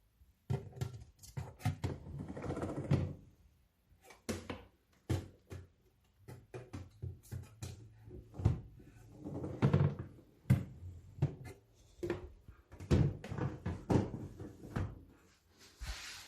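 A fridge being handled: irregular knocks, clicks and thuds, as of its door and parts being opened, closed and moved, with a few longer rustling stretches.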